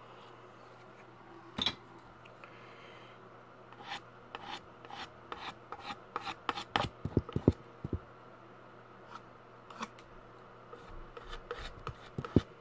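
Paint being worked onto a stretched canvas: a single tap about a second and a half in, then an irregular run of short scratchy strokes and taps that grows denser in the second half.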